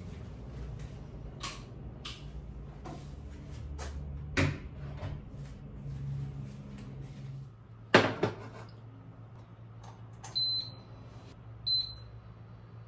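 Light household knocks and handling noise, with a loud double knock about two-thirds through. Near the end come two short, high beeps from an induction cooktop's touch panel as its buttons are pressed.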